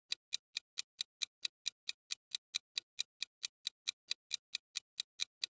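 Countdown-timer sound effect: fast, even clock ticks, about four or five a second.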